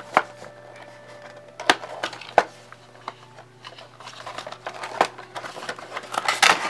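A cardboard Funko Pop window box being handled and opened: scattered sharp clicks and taps as the box is turned and its flap worked, then a short run of crinkling and rustling near the end as the packaging gives up the figure.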